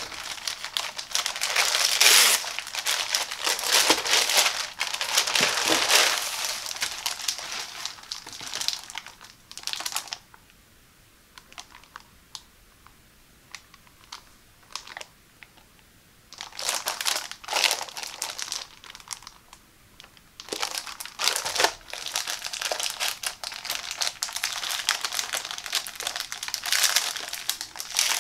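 Plastic packaging crinkling as it is handled: a white poly mailer bag worked open, then the clear plastic bag holding a PEVA shower curtain liner. There is a quieter stretch of several seconds in the middle with only a few soft taps, before the crinkling picks up again.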